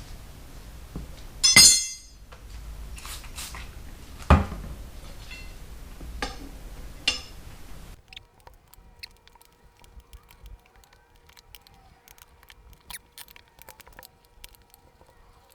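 Metal tire irons clinking and knocking against a motorcycle wheel rim while prying to break the tire bead. There is a loud ringing clink about one and a half seconds in, a heavier knock around four seconds, and lighter clinks after it. About halfway through the background drops away and only small scattered ticks remain.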